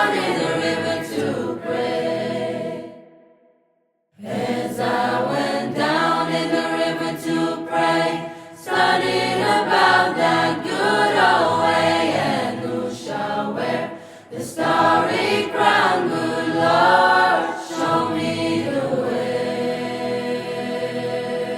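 Music with singing voices, dropping out to silence for about a second around three seconds in, then starting up again.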